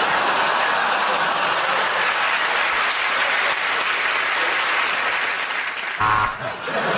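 Studio audience applauding steadily after a punchline. A short low thump comes about six seconds in.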